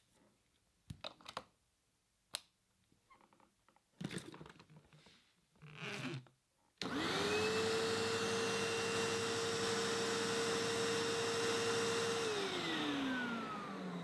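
Vacuum cleaner switched on about seven seconds in: the motor spins up quickly to a steady whine over a rush of air, runs for about five seconds, then is switched off and winds down with a falling whine. Before it, a few scattered clicks and knocks.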